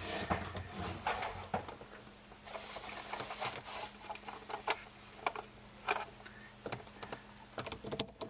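Screwdriver bits and small hand tools being handled and tried: scattered light clicks and rattles, over a faint steady hum.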